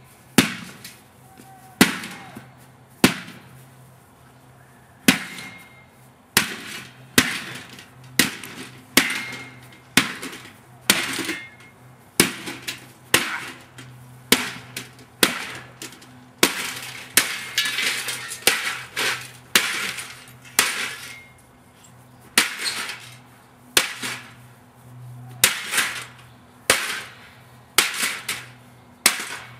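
A toaster oven being smashed with repeated heavy blows, roughly one a second with a couple of short pauses, each strike a crashing impact of metal and glass with a brief rattle after it.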